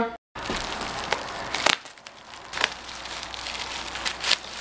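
Plastic packaging and a cardboard box being handled during an unboxing: crinkling and crackling, with a few sharp clicks.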